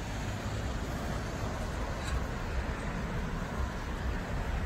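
Steady low rumble with a hiss of outdoor background noise.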